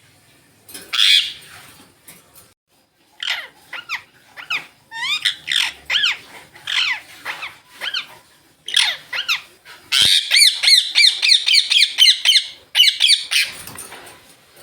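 Indian ringneck parakeets calling. A harsh squawk comes first, then a run of short shrieks that slide down in pitch, and then a fast chattering string of repeated calls, several a second, for a few seconds near the end.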